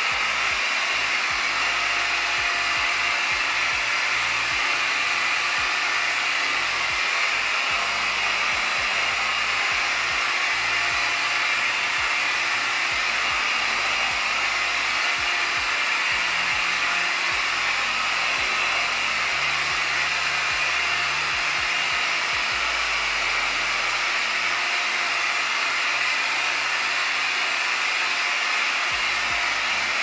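Hoover ONEPWR FloorMate Jet cordless wet-dry floor cleaner running steadily, its suction motor and brush roll working with the mop and vacuum both on.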